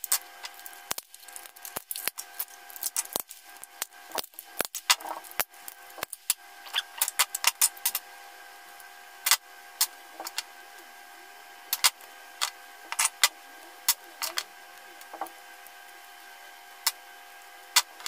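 Plastic laptop battery pack casing being pried apart with a flat screwdriver: a quick string of sharp cracks and snaps, thinning out after about eight seconds into scattered clicks as the 18650 cells and broken pieces are handled.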